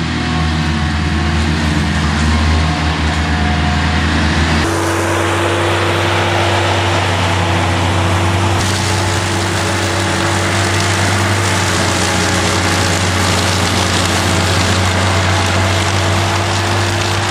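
Avant compact loader running steadily with its 1500 lawn mower attachment. The sound shifts abruptly about five seconds in, when a steady higher hum joins, and shifts again near nine seconds.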